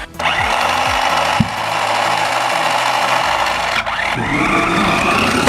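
Toy RC monster truck's small electric motor and plastic gears whirring as it drives, its wheels rubbing over the floor. It cuts out briefly about four seconds in, then winds back up with a rising whine.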